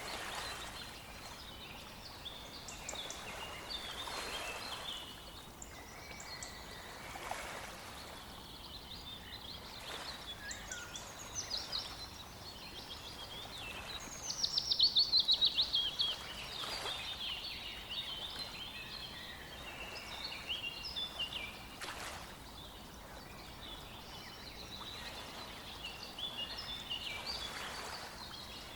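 Several songbirds singing over one another in short chirps and phrases. About halfway through, one bird gives a loud, fast trill that falls in pitch.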